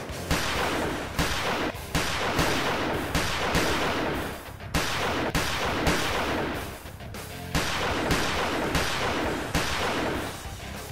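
A long string of pistol gunshots, roughly one or two a second, each cracking sharply and then fading out in a short tail.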